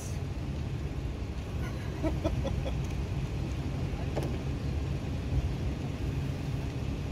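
Steady low outdoor rumble, with a few faint voice-like sounds about two seconds in.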